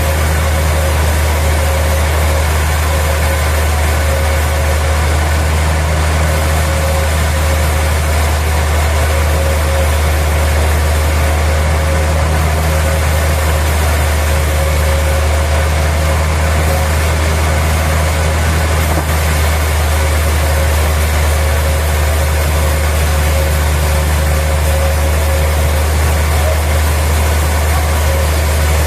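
Sawmill machinery running steadily: a constant deep engine drone with a steady whine above it, never changing in level.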